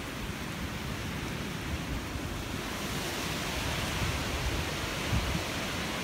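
Strong gusty wind rushing through trees, with low buffeting of the wind on the microphone; the higher rushing hiss swells in the second half.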